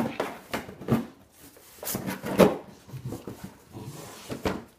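Schnauzer nosing and pushing a cardboard box over a rug: scattered scuffs and knocks of cardboard, with a few short vocal sounds from the dog.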